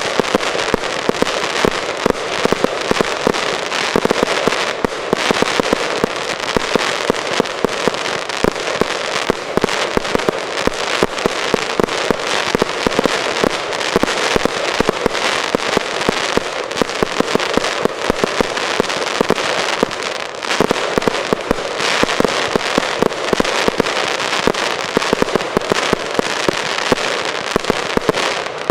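Aerial fireworks going off in a dense, continuous barrage of sharp bangs and crackling, with the explosions following one another many times a second.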